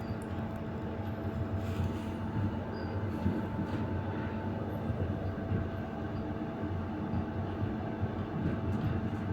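Passenger train carriage under way, heard from its vestibule: a steady rumble of the wheels running on the rails, with a steady hum and a few faint knocks.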